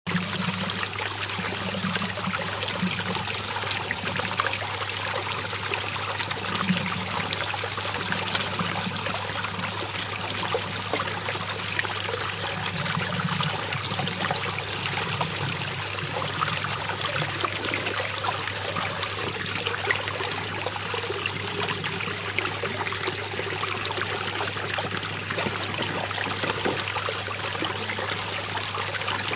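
Water swirling and draining down a whirlpool hole: a steady rush of running water, with a low hum underneath.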